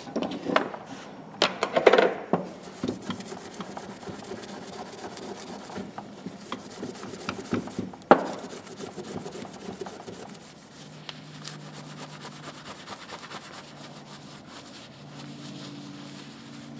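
Cloth rubbing and polishing the clear green plastic handle of a screwdriver, a steady scuffing. Several clicks and knocks of tools being handled come near the start, with a sharper knock about eight seconds in.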